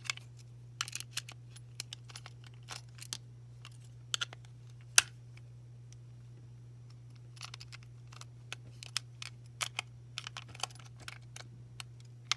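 Irregular small clicks and taps of a plastic Beyblade string launcher being handled and worked apart by hand, with one sharper click about five seconds in and a quicker run of clicks near the end.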